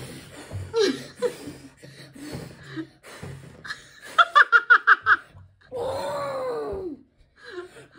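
A young boy blowing in puffs at candle flames, his breath hissing, mixed with giggling: a quick run of about six laughs about four seconds in, then a long falling vocal sound near the end.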